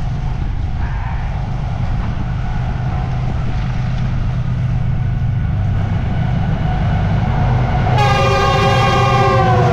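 Express passenger train with a diesel locomotive approaching, a steady low rumble that grows slightly louder. About eight seconds in the locomotive's air horn starts, a chord of several tones held on.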